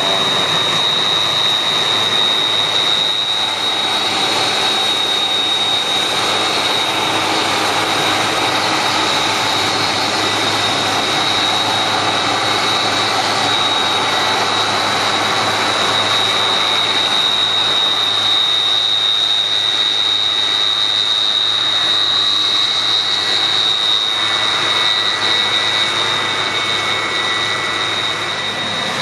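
Rice combine harvester running under load, a steady loud machine noise with a constant high whine over it.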